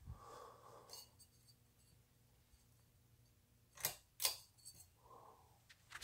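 Hunter Essex ceiling fan running, a faint steady hum. A few sharp clicks break in about a second in and twice close together near four seconds.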